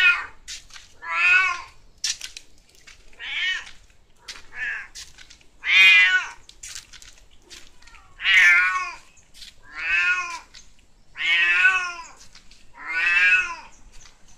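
Domestic cat meowing over and over, about nine drawn-out meows roughly every second and a half.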